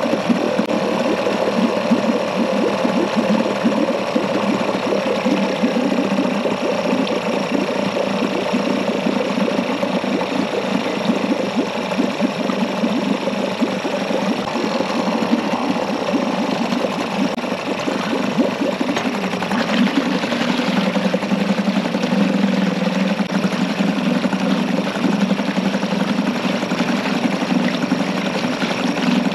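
2001 Yamaha 5 hp two-stroke outboard running steadily at idle with its lower unit in a test tank, the propeller churning the water. The idle is being set with it in gear, and it sounds pretty good.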